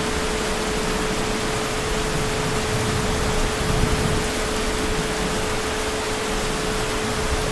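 Heavy rain falling steadily, an even hiss with no breaks, with a single steady tone running under it throughout.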